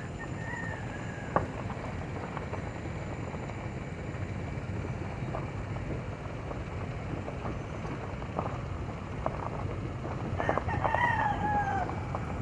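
Rooster crowing twice: a falling call about half a second in and a louder one near the end. A steady low rumble of a vehicle lies underneath, with a single sharp knock just after the first crow.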